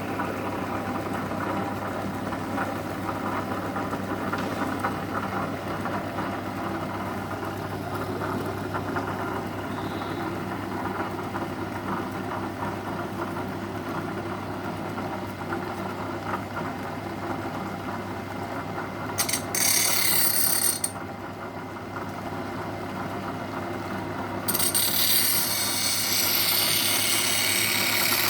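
Electric motor driving a homemade shear-sharpening grinder through a V-belt, running with a steady hum. About two-thirds of the way in, a harsh hiss of steel being ground against the wheel comes for about two seconds, then starts again a few seconds later and carries on.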